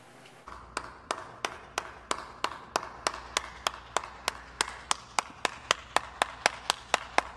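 One person clapping hands at a steady pace, about three claps a second, starting about half a second in.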